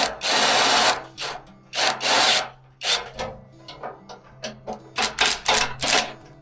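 Rasping strokes of a hand tool working material: an irregular run of back-and-forth strokes, a few short and some drawn out to about a second. Background music plays underneath.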